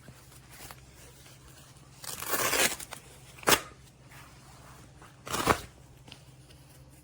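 Hook-and-loop (Velcro) fastening on a dog's puffer jacket being pulled apart: three short tearing sounds, the middle one the shortest and sharpest.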